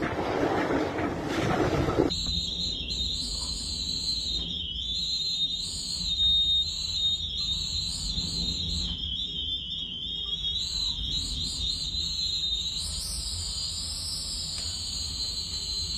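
Gusty wind rumbling on the microphone, then, about two seconds in, a high, thin wind whistle that wavers up and down in pitch over a low rumble.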